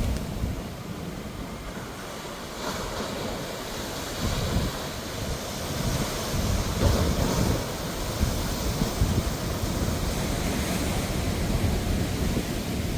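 Sea waves breaking and washing ashore, surging several times, with wind rumbling on the microphone.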